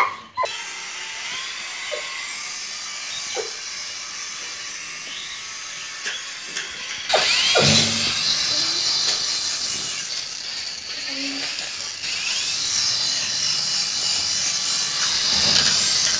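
Toy RC helicopter's small electric rotor motors whirring, a thin high-pitched buzz; it gets clearly louder about seven seconds in as the motors throttle up for flight.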